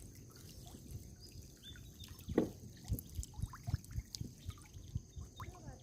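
Water sloshing and dripping, with irregular low knocks and splashes that come more often from about two seconds in.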